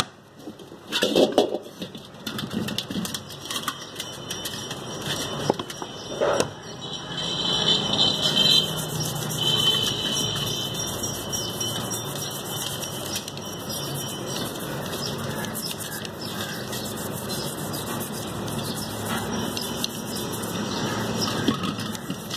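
A few knocks as the car A/C compressor is handled in a metal basin, then a steady mechanical drone with a faint high whine.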